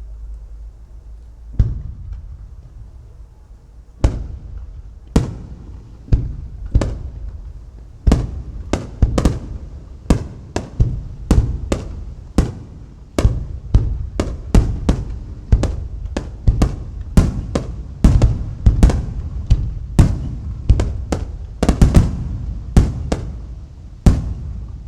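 Aerial firework shells bursting overhead. There is a single boom about a second and a half in, then from about four seconds a rapid barrage of booms, roughly two a second, each with a short fading tail.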